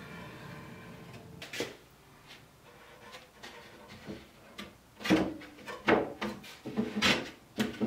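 Thin wooden bottom panel being wedged into a wooden box frame. There is a single knock about a second and a half in, then a run of wooden knocks and scrapes over the last three seconds as the panel is pressed down between the sides.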